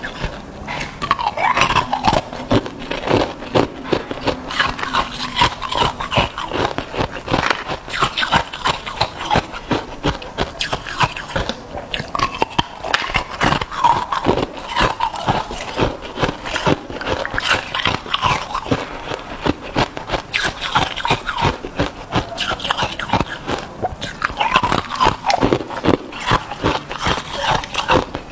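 Hollow, thin-walled ice cubes being bitten and chewed, a dense, irregular crunching and cracking of ice between the teeth that keeps on throughout.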